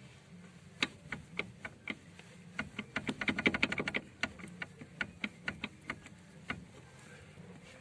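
VAZ-21099 rear shock absorber knocking in its mount as it is moved up and down by hand: sharp clicks, a few at first, then a fast run of them about three seconds in, then sparser. The knock comes from play at the shock's lower bolt, where the nut has worked loose and the rubber bushing has slackened.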